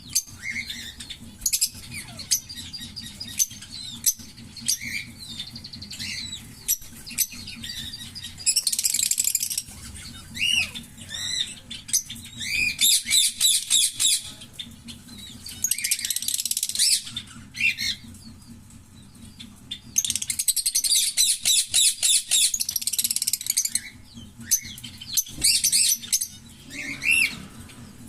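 A pair of green Fischer's lovebirds chirping: single high chirps between several bursts of rapid, high-pitched chattering song, the longest lasting about four seconds near the end.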